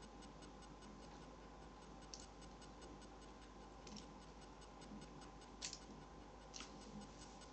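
Near silence: room tone with a faint steady hum and a faint, even ticking, broken by four brief soft clicks.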